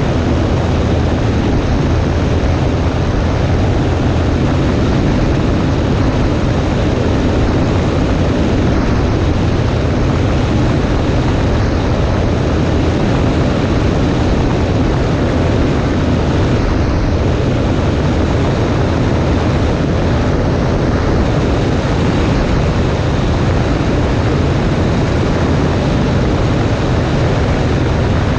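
Cessna 140A light plane's piston engine and propeller running at a steady cruise power, with a constant low drone and rushing air noise and no change in pitch or level.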